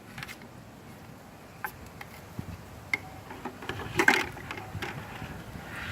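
Scattered light taps and knocks of a wooden stick prodding and scraping inside a bleach-soaked ceiling fan, with one louder knock about four seconds in.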